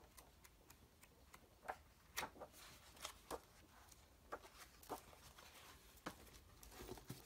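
Thick pages of an old hardback book being leafed through by hand: faint, scattered soft flicks and ticks of paper.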